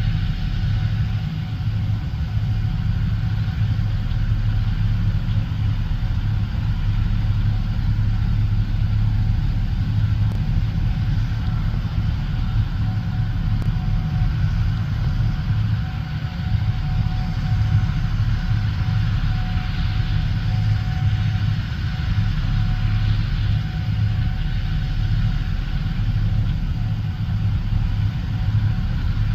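Gleaner S77 combine running steadily while harvesting corn: a constant deep engine hum with a faint steady whine above it.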